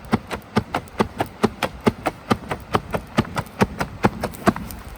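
Rapid, evenly paced knocks of wood being chopped or struck for kindling, about four or five a second, stopping about half a second before the end.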